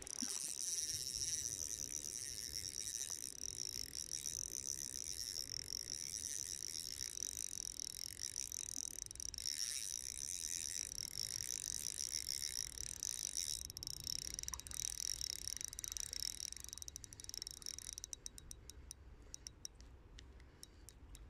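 Spinning reel being cranked steadily to retrieve a small spoon, a continuous high whir; near the end the winding slows and breaks into a quick run of clicks as the lure comes in close.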